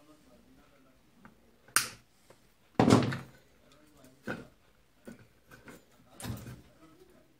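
A few knocks and clunks as a small mains transformer and the sheet-metal charger case are handled and moved about. The loudest knock comes about three seconds in, with smaller taps after it.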